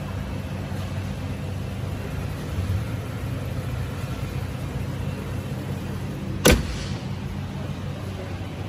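Ford F-150 Raptor's 3.5-litre twin-turbo V6 idling steadily. A single loud slam of the hood being shut comes about two-thirds of the way through.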